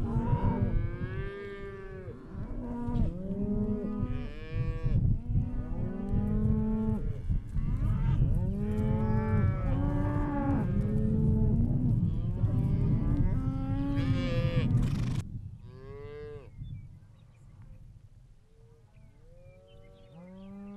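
A herd of beef cows and calves mooing and bawling, many calls overlapping at once over a low rumble. About fifteen seconds in the din drops away suddenly, leaving a few quieter, scattered calls.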